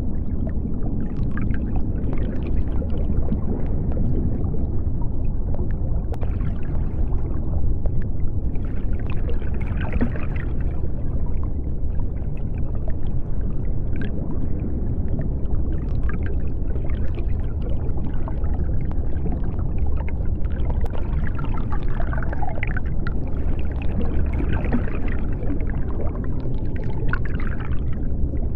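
Underwater sea ambience: a steady deep rumbling wash, with bubbling and gurgling that swells and fades every few seconds and an occasional faint click.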